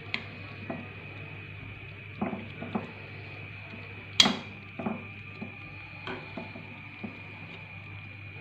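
Metal spatula knocking and scraping against a nonstick frying pan as chicken pieces are turned over, with scattered clinks and the loudest knock a little after four seconds in. A steady low hum and a faint steady high tone run underneath.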